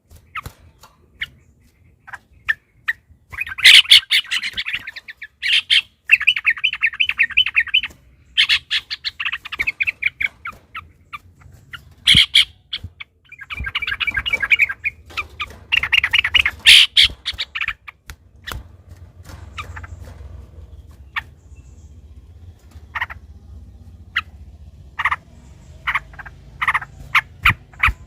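Yellow-vented bulbuls (trucukan) calling in repeated bursts of fast rattling chatter, each burst a second or two long. The calls become sparser short single notes in the last third.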